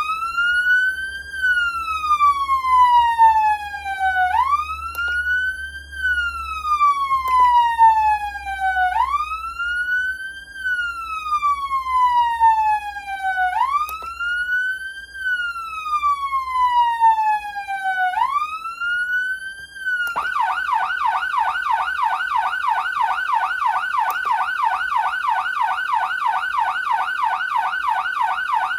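Whelen CenCom RED electronic siren amplifier sounding a high-pitched wail: about four slow cycles, each rising quickly and then falling slowly. About two-thirds of the way through it switches to a fast yelp, warbling about three to four times a second.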